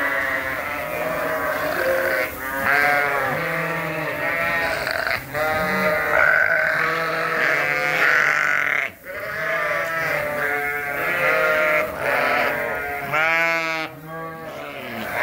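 A flock of sheep bleating, many calls overlapping almost without a break, with a brief lull about nine seconds in.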